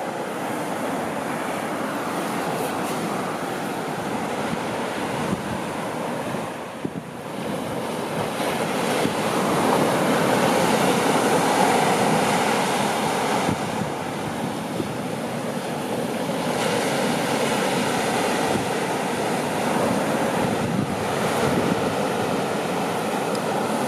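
Sea surf breaking and washing up a sandy beach, a steady rushing wash that swells louder about ten seconds in and ebbs and returns with the waves.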